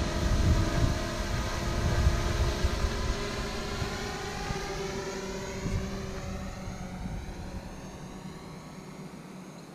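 DJI Mavic Pro quadcopter's propellers buzzing as it flies overhead and away, several steady tones fading gradually. Low wind rumble on the microphone in the first few seconds.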